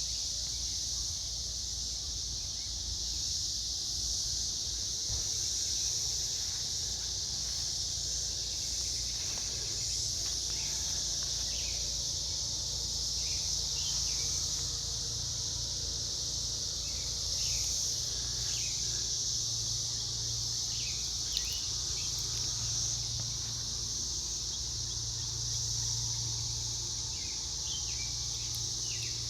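Chorus of 17-year periodical cicadas singing up in the trees: a steady, unbroken high-pitched drone, early in the emergence while the chorus is still building.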